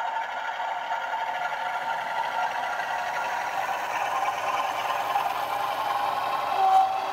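A TTS model-locomotive sound decoder plays a Class 47 diesel engine running, heard through the model's small speaker with little bass, while an OO gauge freight train's wheels clatter along the track. A brief higher tone sounds near the end.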